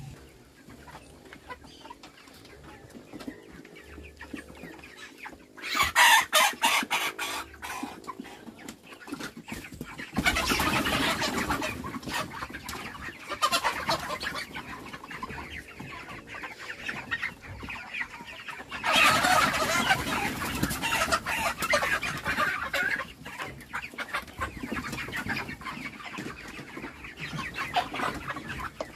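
White broiler chickens squawking and clucking as they are grabbed and handled in the coop, in several loud outbursts: about six seconds in, again around ten seconds, and again around nineteen seconds.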